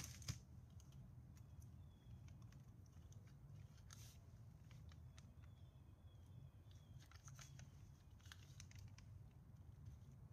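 Near silence: faint small clicks and rustles of paper being handled and rolled on a wooden dowel, over a steady low hum.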